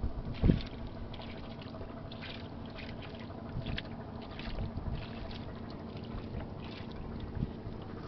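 Hands working through wet river mud in the hull of a wooden boat: soft squelches and scattered small crackles. One knock on the boat's wooden frame about half a second in is the loudest sound.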